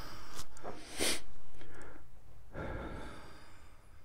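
A man's breath noises and rustling as he shifts in bed: a few noisy breaths, each lasting up to a second or so.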